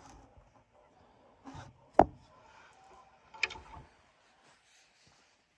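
A few low handling knocks and rubs, with one sharp wooden-sounding knock about two seconds in and a shorter clatter about a second later; the chainsaw's engine is not running.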